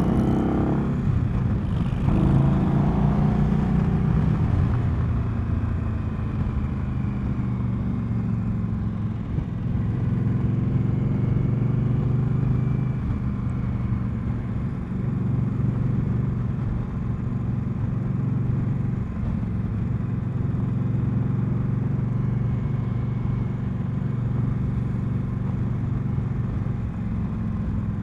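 2020 Indian Scout's V-twin engine heard from the rider's seat, revs rising as the bike accelerates in the first few seconds, then running steadily at cruising speed.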